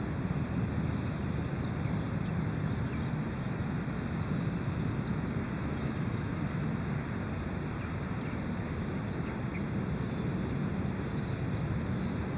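Steady outdoor background rumble, low and unbroken, with a constant thin high-pitched whine above it; no distinct events.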